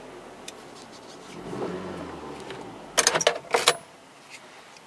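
Car keys jangling and clicking in the hand, a quick cluster of sharp metallic clicks lasting under a second about three seconds in.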